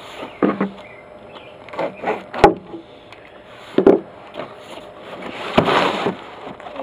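A cardboard shipping box holding flat solar panels being handled and unpacked on wooden deck boards: scraping and rustling cardboard, with three sharp knocks about 2.5, 4 and 5.6 seconds in.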